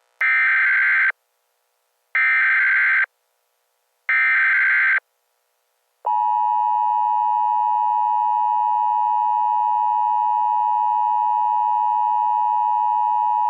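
Emergency Alert System tones: three one-second bursts of the SAME data header, a second apart, then from about six seconds in the steady two-tone attention signal.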